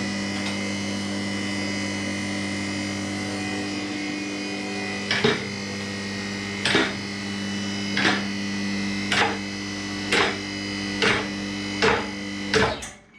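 The electric motor and hydraulic pump of a two-post car lift's power unit running with a steady hum and whine as the lift rises. From about five seconds in, the safety latches clack against the posts' lock ladders roughly once a second, a little faster towards the end. The motor cuts off just before the end.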